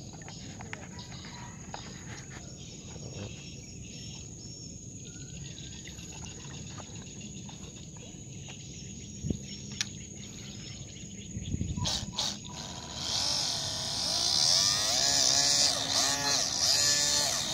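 A few handling knocks over quiet outdoor background. About three-quarters of the way in, the RC boat's electric motor and water-jet pump start up: a loud rushing hiss with a whine that rises and falls.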